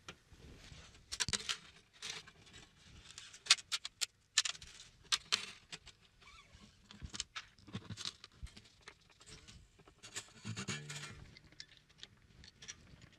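Steel strings of a 12-string acoustic guitar being handled and untangled at the headstock: irregular light clicks, jingles and scrapes of wire, with a few sharper ticks.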